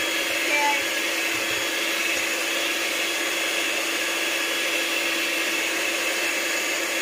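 Electric hand mixer running steadily at an even pitch, its beaters turning through cake batter in a stainless steel bowl.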